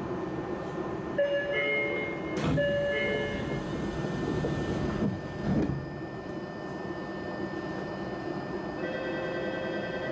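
Tokyo Metro 05 series chopper-controlled subway train heard from inside the car as it pulls into a station and stops. Over the running noise, several steady high whining tones sound about a second in, a knock follows, and the noise swells as the train comes to a halt. Steady tones return near the end.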